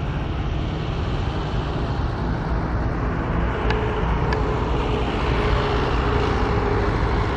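Road traffic going past: a steady rumble of passing vehicles that swells somewhat in the second half, with two faint short clicks about halfway through.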